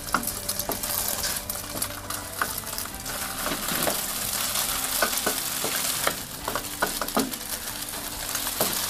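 Egg frying in hot oil in a stainless steel wok, with a steady sizzle. A wooden spatula scrapes and knocks against the pan now and then as the egg is broken up and scrambled.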